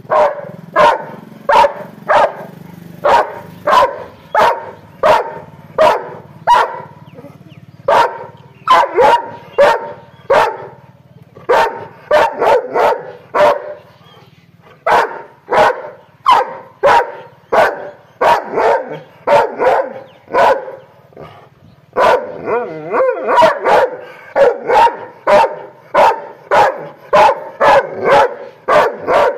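Large chained dog barking angrily over and over, about two barks a second, in runs broken by short pauses.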